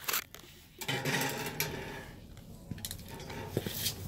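Handling noise from the camera as it is picked up and set back down: a few knocks and clicks, then rubbing and small clinks.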